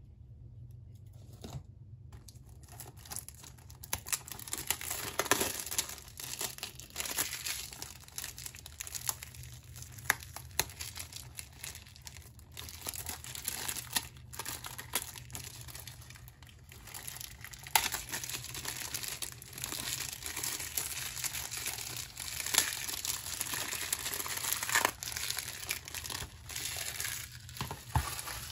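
Plastic shrink-wrap crinkling and tearing as it is peeled off a Blu-ray case, in irregular crackles with a few sharp snaps.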